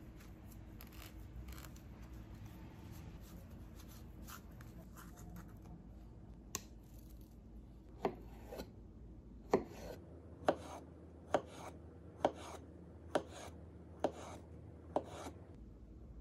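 Kitchen knife cutting an avocado: faint scraping as the blade works through the fruit held in the hand, then from about eight seconds in, sharp taps of the knife on a wooden cutting board, about one a second, as the avocado is sliced.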